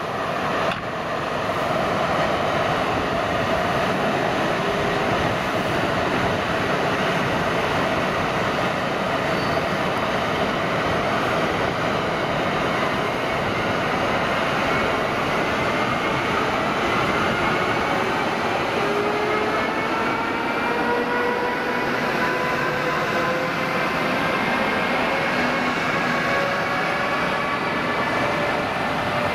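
Siemens Vectron electric locomotive (ZSSK class 383) running with a steady rumble and hiss. From about two-thirds of the way in, the traction converter's whine rises in pitch as the locomotive gathers speed past with its passenger train.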